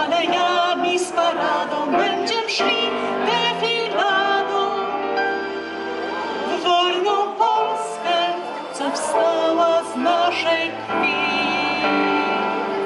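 A woman singing into a microphone with vibrato, accompanied by chords on an electronic keyboard, amplified through PA speakers.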